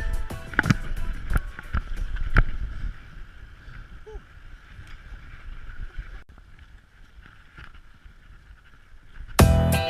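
Music with a beat fades out about two and a half seconds in, leaving a faint steady rushing noise. Loud music cuts back in near the end.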